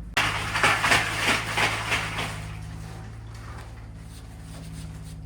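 A steady low engine hum, with a burst of clattering and rattling right at the start that lasts about two seconds and then fades.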